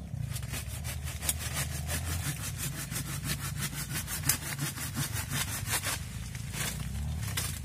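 Hand pruning saw cutting through a coffee tree branch in quick, even strokes, about five a second, pausing about six seconds in before two last strokes.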